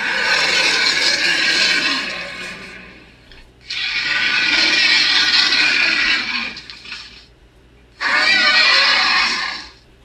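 Sound effects: three long, harsh, hissing roars of two to three seconds each, with short pauses between them; the last has a rough warble.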